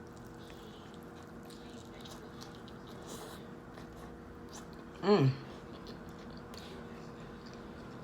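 Close-miked chewing and biting of a sandwich, soft and steady, over a faint hum. About five seconds in comes one short, loud, high-pitched sound that falls steeply in pitch.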